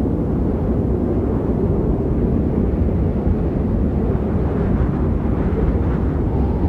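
Snowstorm sound effect: a steady, deep rumbling wind noise with no distinct events.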